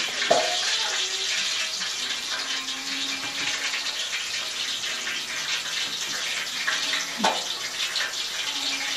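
Steady sizzling hiss of chopped onions sautéing in oil in a pan on the stove, with one brief sharp sound about seven seconds in.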